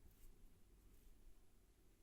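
Near silence: faint room tone, with two very soft rustles, one just after the start and one about a second in.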